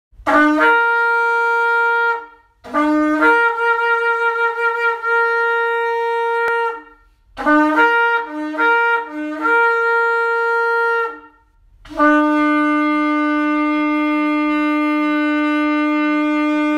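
Shofar blown in four blasts. The first three each slide up from a low note to a higher held one, the third broken into short stop-start notes before it holds; the last is a long steady low note held for about six seconds.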